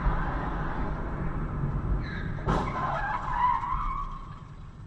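Road noise inside a moving car, with a screech of tyres and a sudden bang about two and a half seconds in; the screech then falls away over the next two seconds.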